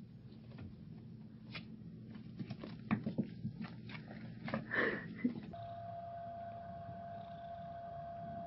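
A kitten playing on a wooden floor: scattered taps, scrapes and knocks, loudest around three and five seconds in. About five and a half seconds in, the sound cuts to a steady hum with a held tone.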